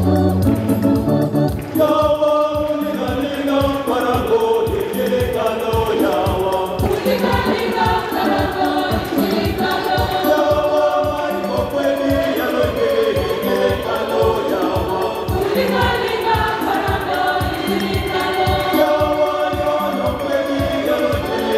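Church choir singing a gospel procession song together, backed by an electronic keyboard with a steady drum beat. The voices come in about two seconds in over the keyboard's opening.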